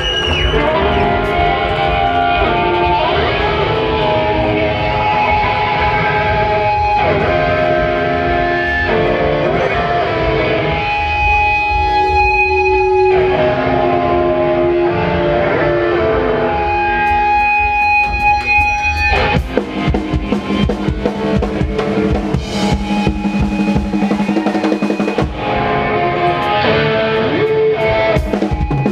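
Post-hardcore band playing live: electric guitars carry held melodic lines over bass and a drum kit. About two-thirds of the way in the drumming gets busier and denser.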